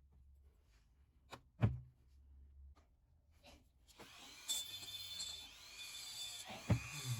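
A few sharp knocks of parts being handled, then, about four seconds in, a power tool starts up and runs with a dense rasping noise and a steady high whine, working on the blowtorch's metal parts.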